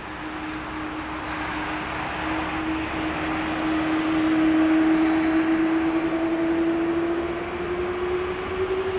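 Airbus A330-200 airliner taxiing past with its twin jet engines at idle: a steady rushing jet noise with a held whine that swells to its loudest about halfway through as the aircraft passes, the whine climbing slightly in pitch near the end.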